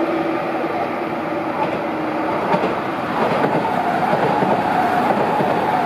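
N700-series Tokaido Shinkansen train passing close by on the tracks below: a rushing rumble of wheels on rail builds about two and a half seconds in, with a steady motor whine over it. Before that, a steadier hum with a couple of held tones comes from trains on the neighbouring lines.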